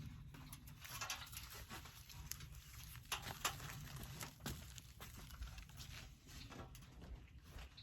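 Faint footsteps, rustling and light irregular knocks as the assembled metal raised bed is carried across the garden, over a steady low rumble.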